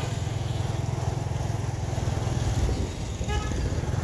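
Street-traffic rumble from a vehicle on the move, with a short horn toot about three seconds in.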